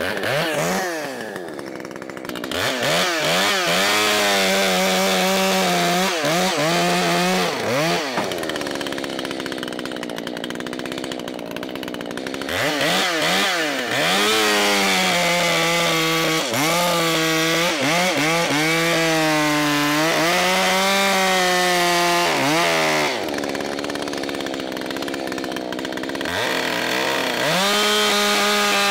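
Two-stroke Echo chainsaw revved repeatedly. It rises from idle to full throttle, holds there for several seconds at a time, then drops back to idle, with a few quick blips near the start.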